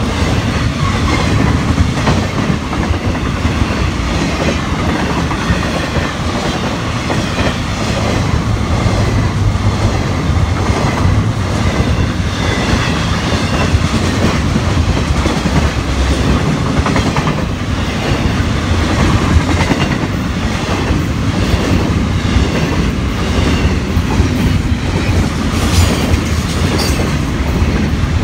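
Florida East Coast intermodal freight train of double-stack well cars rolling past: a steady rumble of steel wheels on the rails with a quick, continuous clickety-clack of wheels passing over rail joints.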